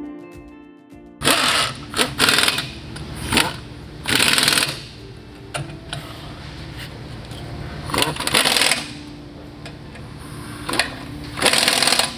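Pneumatic impact wrench running down the spring carrier mounting bolts in a series of short, loud bursts of under a second each, six in all.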